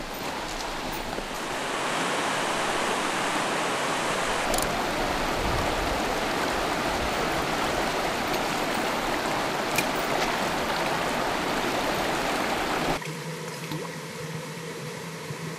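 Fast mountain river rushing over stones, a steady dense rush of water that grows louder about two seconds in. Near the end it cuts suddenly to a quieter water sound with a faint low hum.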